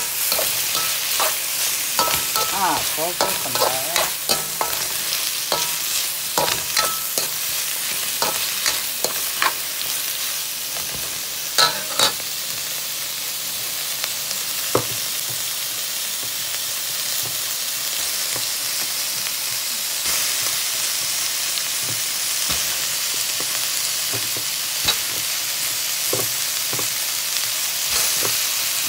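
Sliced celery and carrots sizzling in oil in a hot metal pan, with a steady frying hiss. A utensil stirs the vegetables, clicking and scraping against the metal, most often in the first half.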